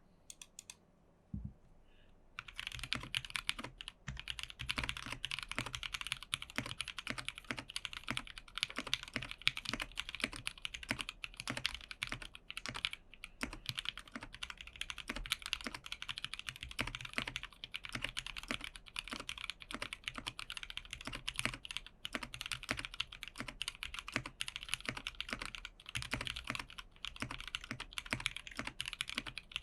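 Typing on a TKC Portico mechanical keyboard with linear switches and PBT keycaps: one keystroke about a second in, then fast, continuous typing from about two seconds in.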